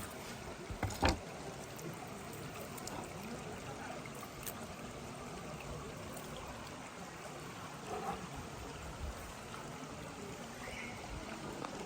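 Steady flowing water, like a stream, with a sharp knock about a second in.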